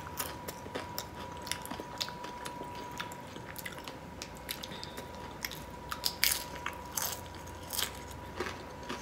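A person chewing and crunching Doritos nacho chips with shrimp: irregular sharp crunches, loudest about six seconds in.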